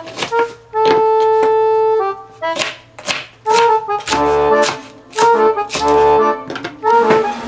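Instrumental background music carries a melody of held notes. Over it, a chef's knife chops through spring onions onto a wooden cutting board in a series of sharp cuts.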